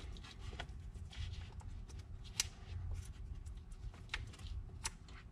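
Hands working among plastic hoses, connectors and wiring harness in a car engine bay: light rustling and scattered small clicks, a few of them sharper, over a low rumble.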